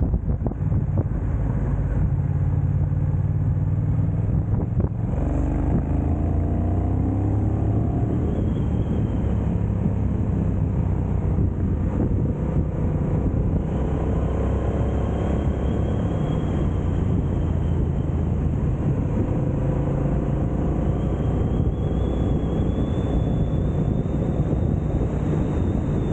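Motorcycle engine running on the move, with wind rushing over the microphone; the engine note rises and falls as the throttle and gears change, with a clear shift about five seconds in.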